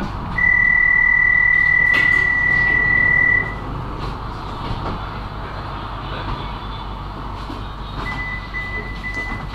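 A tram's electronic door warning tone sounds over the low hum of the stationary tram. It is one steady high tone lasting about three seconds, then a run of short beeps at the same pitch, about two or three a second, starting near the end.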